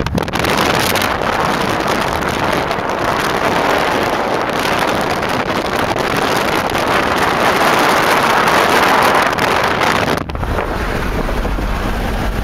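Wind rushing past a car's side window at highway speed, a loud steady hiss on the microphone. It cuts off abruptly about ten seconds in, leaving the low road rumble of the car's cabin.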